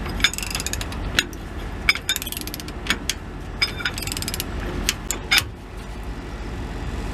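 Ratchet wrench on a homemade breaker-bar extension cranking down an exhaust clamp's bolts. It gives short quick runs of pawl clicks between pulls, repeated about eight times.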